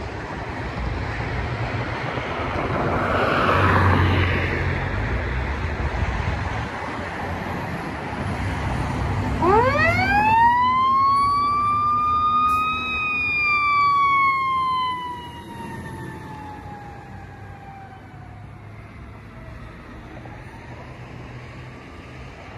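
Fire ladder truck passing with its engine running, as its siren winds up over about three seconds to a high wail and then slowly falls in pitch as the truck moves away.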